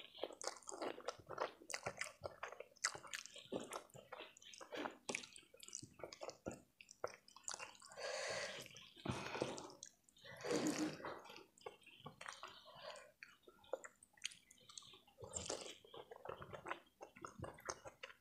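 Close-miked mouth sounds of eating saucy instant noodles: wet chewing and lip smacks throughout, with two longer slurps of noodles around the middle.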